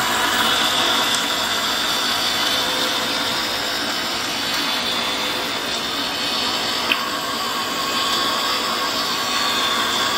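Electric mixer-grinder running steadily at speed, blending watermelon pieces with water into a smooth milkshake, a steady whine over the churning liquid.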